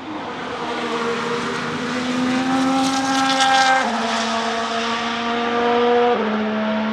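Ferrari F1-75 Formula 1 car's 1.6-litre turbocharged V6 accelerating hard, its revs climbing and dropping sharply at two upshifts, about four and six seconds in. It grows louder as the car comes past.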